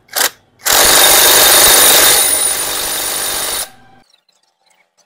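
Cordless impact wrench running the clutch hub nut down on a motorcycle engine being reassembled. After a short blip it runs for about three seconds, a little quieter in the second half, then stops suddenly.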